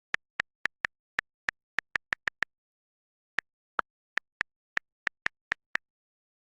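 A quick, uneven run of short, sharp clicks, about twenty in all, with a pause of about a second halfway through, and dead silence between them.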